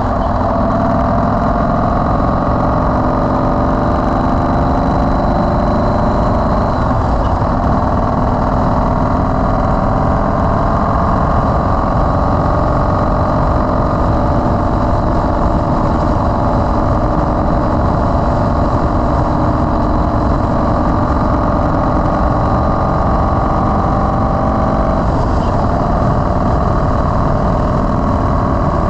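Yamaha Road Star XV1600's air-cooled V-twin engine running steadily while under way, with low wind noise on the microphone.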